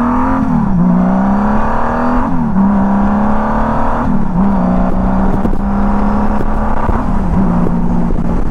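1999 Honda Valkyrie's 1500cc liquid-cooled flat-six engine accelerating through two upshifts. The pitch climbs and falls away sharply at each gear change, right at the start and again about two seconds in. It then holds a steady cruising note, with two brief dips in pitch.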